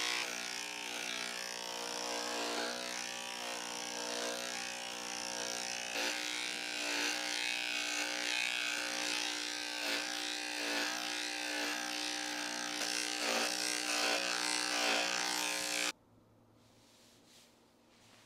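Cordless electric pet clipper running steadily as its blade shaves through a dog's heavily matted coat, its hum wavering briefly every second or so; it cuts off suddenly near the end.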